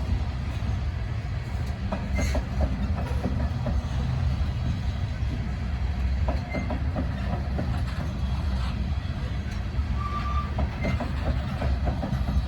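Freight cars of a grain train rolling slowly past: a steady low rumble with the clack of wheels over rail joints, and a few brief squeaks, one about ten seconds in.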